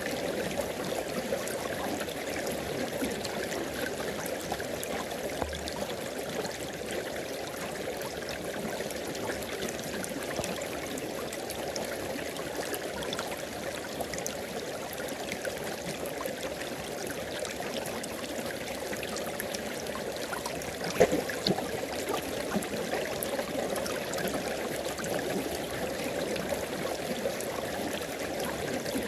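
River water flowing and splashing over rocks, a steady babbling rush with small gurgles throughout and a brief louder splash about 21 seconds in.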